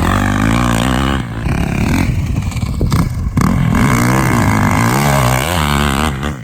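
Yamaha YZ450FX dirt bike's single-cylinder four-stroke engine revving up and down under riding, with the throttle easing off briefly about a second in and again for a moment around the middle.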